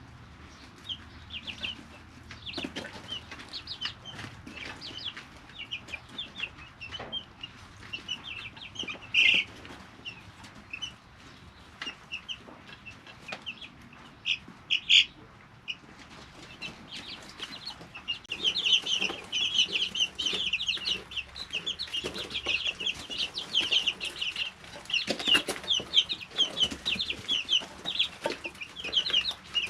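Brood of three-week-old chicks peeping in a brooder: scattered short high peeps at first, with a louder call about 9 s and 15 s in, then a dense, busy chorus of peeping from about two-thirds of the way through. Occasional light knocks and rustles from the chicks moving about.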